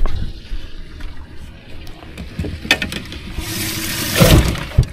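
A crappie being put into a bass boat's livewell: a few sharp clicks, then a loud splashing of water about three and a half seconds in, the loudest part, ending in a couple of low thumps.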